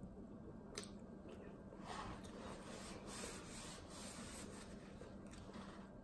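Paper towel rubbed over the fingers to wipe them, a faint rustling wipe from about two seconds in until past the middle, with one light click shortly before.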